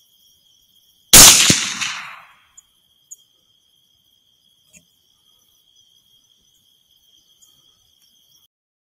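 A single rifle shot about a second in, its report dying away over roughly a second. A steady high insect trill, like crickets, runs behind it and stops near the end.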